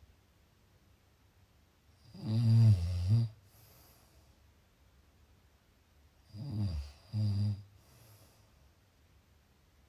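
Person snoring: one long snore about two seconds in, then two shorter snores close together around six to seven and a half seconds.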